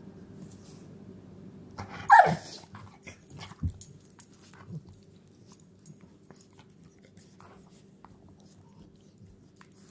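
An American Staffordshire terrier gives one loud, short yelping bark about two seconds in, its pitch falling steeply, while playing rough with a person's hand, followed by a few softer low sounds and small clicks.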